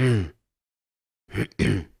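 A man clearing his throat: a short voiced grunt falling in pitch, then after a pause a rough two-part throat clear about a second and a half in.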